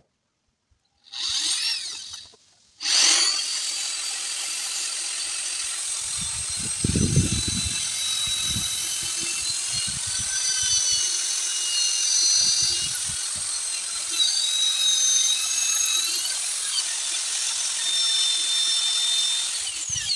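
Electric hand drill drilling into a broken bolt sheared off in an engine block. A short blip of the motor comes about a second in, then from about three seconds in a steady run with a high whine until near the end.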